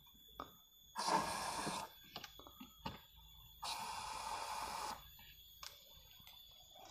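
Aerosol can of foaming AC cleaner sprayed into a car's dashboard air vent in two hisses, a short one about a second in and a longer, steady one of about a second and a half, with a few light clicks between them.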